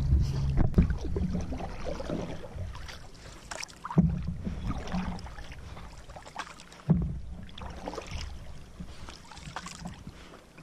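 Canoe being paddled with a wooden paddle: three strokes about three seconds apart, each starting sharply as the blade bites the water and fading into a swish of moving water.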